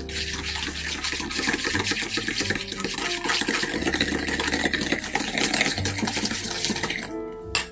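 Mixer beaters beating soft butter, sugar and mint liqueur in a stainless steel bowl: a fast, wet, grainy scraping and slapping that stops about seven seconds in, followed by a short sharp knock.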